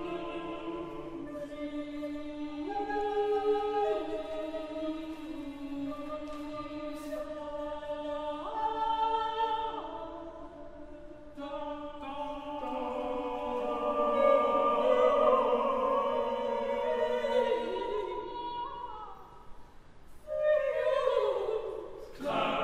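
A cappella SATB chorus singing long held chords in several overlapping parts that shift from note to note, growing louder and fuller in the middle. Near the end the voices slide downward in sweeping glides.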